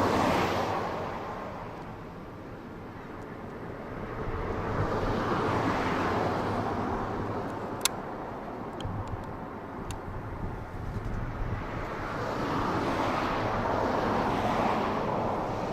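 Outdoor rushing noise that swells and fades three times, like vehicles passing, over a steady low hum, with a sharp click about eight seconds in.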